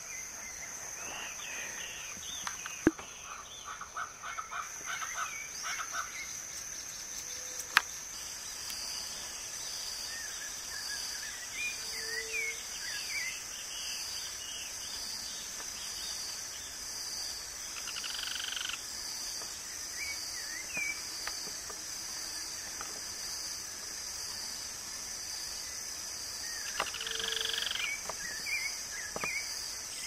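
Outdoor rural ambience: insects buzzing steadily at a high pitch, with short bird chirps and calls scattered through it. Two sharp clicks sound in the first eight seconds.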